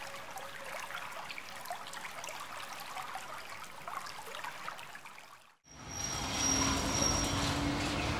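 Quiet pond-side ambience with faint trickling and scattered small ticks. After a sudden cut about two-thirds of the way in, it gives way to the louder, steady low rumble of a boat's motor with a faint whine, heard from the boat moving along the canal.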